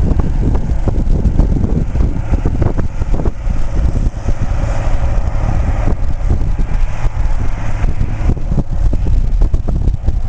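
Wind buffeting the microphone over the engine of a Marflex XN 1600 self-propelled sprayer driving across the field. The engine is most audible in the middle, as the machine passes nearest.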